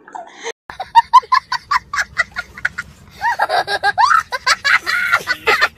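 A young boy laughing hard: a quick string of short high 'ha' bursts, then longer squealing laughs near the end, after a brief dead gap about half a second in.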